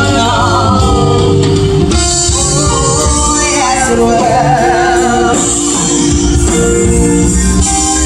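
Music with a singer: a sung melody line with vibrato over a steady instrumental accompaniment.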